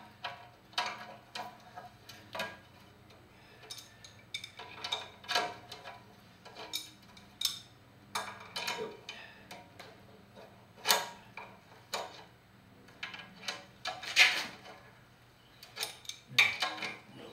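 Hand ratchet wrench clicking in short irregular runs, with metal tool clinks, as bolts are tightened to secure the engine block to its stand.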